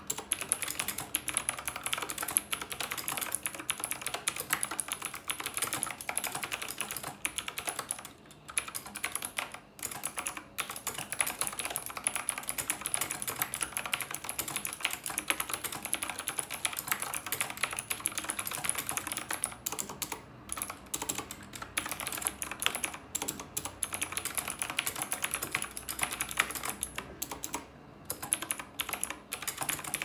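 Continuous fast typing on a Knewkey Rymek typewriter-style mechanical keyboard: a dense stream of key clicks, broken by a few brief pauses about a third of the way in, two-thirds in and near the end.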